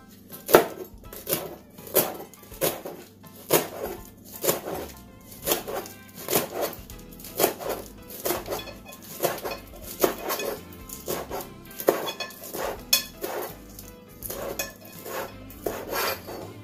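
Kitchen knife chopping callaloo leaves and stems on a cutting board: a steady run of sharp knocks, a little more than one a second.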